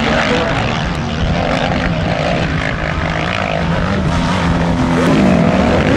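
Motocross dirt bike engine revving, its pitch rising and falling as the rider works the throttle through the turns.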